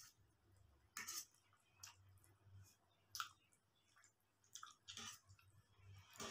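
Faint eating sounds: chewing with a handful of short, sharp clicks as a fork works through noodles on a steel plate.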